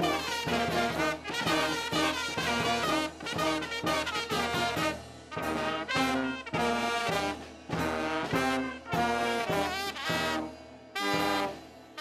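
Brass band playing, with sousaphone and tenor horns over bass drum and timbales struck on the beat. The playing breaks off briefly about five seconds in and again near the end.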